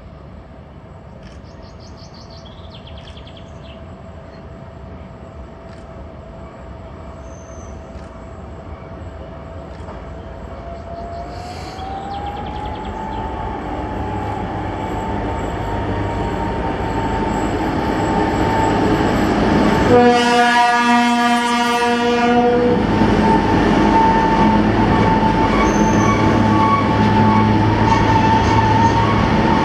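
M62 diesel locomotive with a train of tank wagons approaching and running through, its engine note growing steadily louder and rising in pitch about twelve seconds in. About twenty seconds in it gives one horn blast of about two seconds. The tank wagons then roll past with a loud steady rumble.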